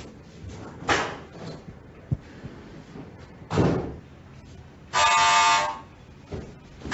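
A door thuds twice, then an electric doorbell buzzes once for under a second, about five seconds in.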